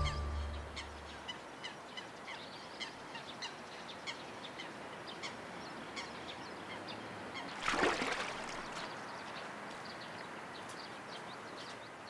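Wild birds calling over a reed-fringed reservoir: many short, high chirps scattered throughout, and one louder, rougher call about eight seconds in. The tail of background music fades out at the very start.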